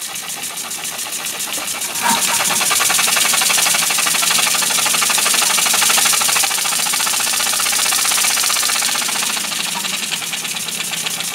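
Small brass oscillating-cylinder model steam engine running on compressed air: a rapid, even puffing and clicking of its exhaust with a hiss, louder from about two seconds in.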